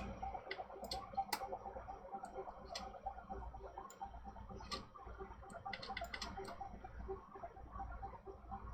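Scattered sharp clicks at a computer, about a dozen at uneven intervals with a small cluster a little past the middle, over a faint steady low hum.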